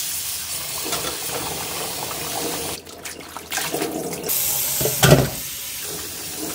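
Tap water running into a stainless steel sink bowl while salted napa cabbage is rinsed and swished by hand, with splashing. About five seconds in comes one louder thump.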